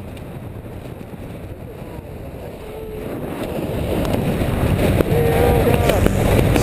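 Wind buffeting the camera microphone during a tandem parachute descent under an open canopy, a steady rushing that grows louder about halfway through. Faint voice sounds come through the wind now and then.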